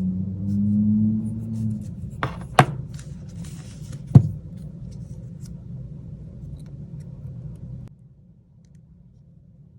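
Three sharp clicks and taps of small tools and phone parts being handled during reassembly, over a steady low hum that stops near the end.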